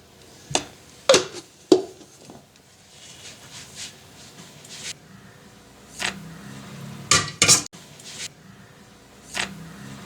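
Dishes and a spoon clinking, as separate sharp clinks about a second apart with a quick cluster of them near the end.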